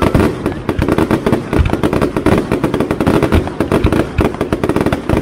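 Fireworks display: aerial shells launching and bursting in rapid succession, a loud, dense, unbroken string of bangs and crackling.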